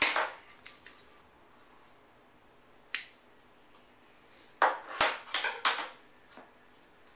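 Scissors snipping paracord: a sharp snip at the start, another about three seconds in, then a quick cluster of snips and clicks around five seconds in.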